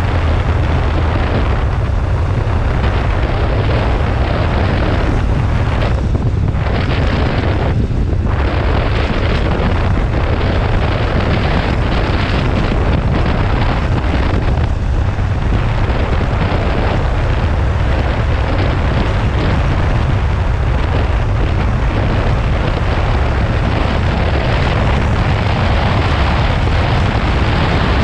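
Loud, steady wind rumble on a GoPro's microphone while riding a motorcycle, with no clear engine note standing out.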